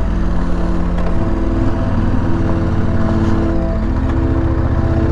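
KTM 1190 Adventure R's V-twin engine running under way at steady low revs on a gravel climb. The engine note drops slightly near the start and picks up again about four seconds in.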